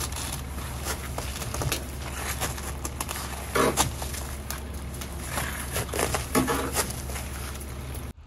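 Boots climbing a snow-covered metal ladder: irregular crunches and knocks as snow packed on the rungs is stepped on and knocked loose, over a steady low rumble.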